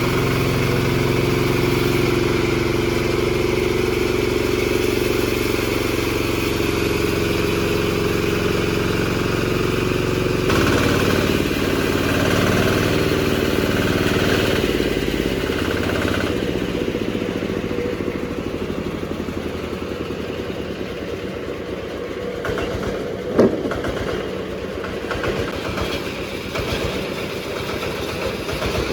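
20 HP diesel engine running a horizontal bandsaw sawmill, at first a steady drone. About ten seconds in the sound changes, and later it turns into a rougher, pulsing run, with one sharp knock about two-thirds of the way through.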